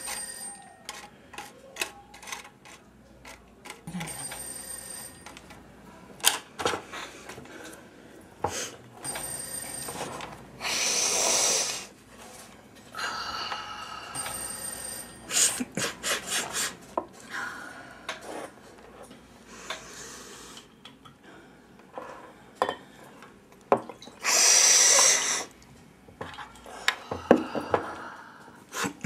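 A person snorting lines of cocaine off a table: two long, hard sniffs, a little before halfway and again near the end. Between them come scattered light clicks and taps on the table, some with a brief high ringing.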